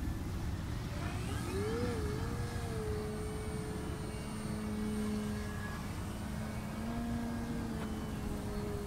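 Radio-controlled Extra 330SC aerobatic model airplane flying overhead, its motor and propeller giving a steady drone. The pitch wavers and climbs about a second and a half in, then holds level while the plane manoeuvres.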